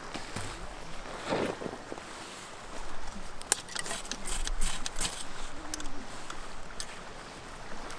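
Twigs and kindling being snapped and handled while a campfire is built, with a quick run of sharp cracks and knocks in the middle.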